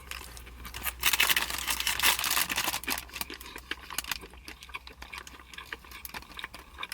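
Takeout food packaging being handled, with a burst of crinkling and rustling about a second in that lasts about two seconds, then scattered small clicks and taps.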